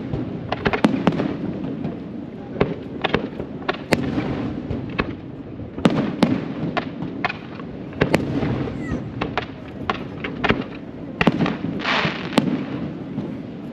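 Fireworks going off: a rapid, irregular string of bangs and cracks from bursting aerial shells and small crackling bursts, with a brief hissing rush near the end.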